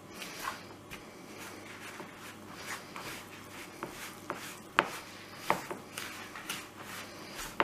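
Wooden spoon stirring crumbly biscuit dough in a bowl: soft scraping and rustling, with a few sharper knocks of the spoon against the bowl, the loudest about five seconds in.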